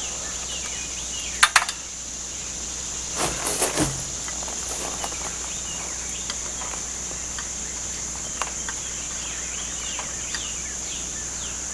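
A steady high-pitched chorus of insects, like crickets, with a few short knocks of parts being handled about one and a half seconds in and again around three and a half seconds in.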